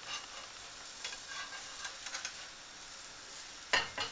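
Scrambled egg sizzling in a frying pan while a spatula scrapes and stirs it. Near the end comes one loud clank as the pan is tipped over the plate to slide the egg out.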